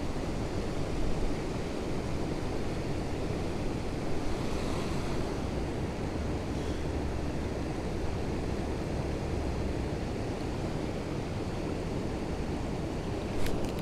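Steady rush of river water pouring over a spillway, with wind buffeting the microphone. A few light clicks come near the end.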